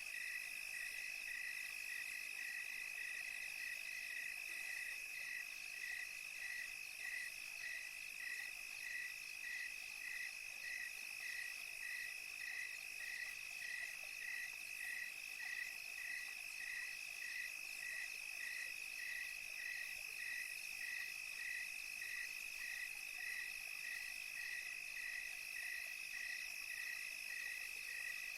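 Crickets chirping at night: one steady high trill runs on unbroken while a second chirps in even pulses, about two a second.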